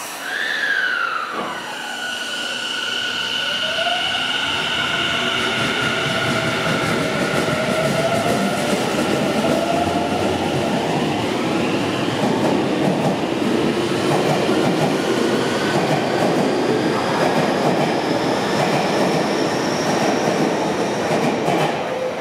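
Tobu 50050 series electric train pulling away and accelerating: its VVVF inverter traction motors whine in pitches that fall sharply in the first second or two, then climb and shift as it gathers speed. The rumble and clatter of the wheels on the rails builds and dominates as the cars pass ever faster.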